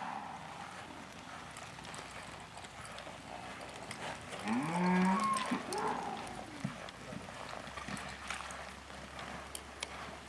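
A calf mooing around the middle: one drawn-out call that bends up and back down in pitch, trailing into a shorter, fainter second call.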